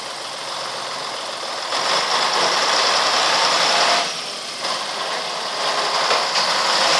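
Scania tow truck's diesel engine running, growing louder in two surges of about two seconds each as it works at pulling a crashed lorry out of a ditch.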